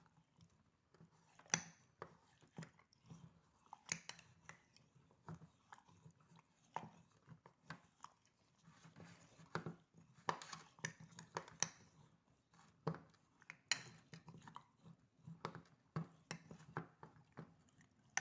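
A spoon stirring a mixture of garlic, dates, seeds and olive oil in a container: quiet, irregular scraping and light clicks.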